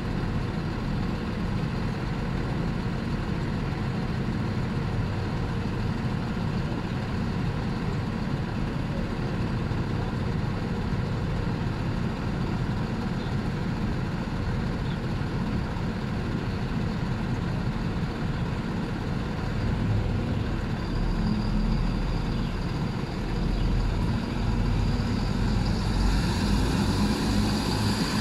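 CFR Siemens Desiro diesel multiple unit's engine idling steadily at a halt. About twenty seconds in the engine note strengthens and a steady high whine joins it as the unit moves off.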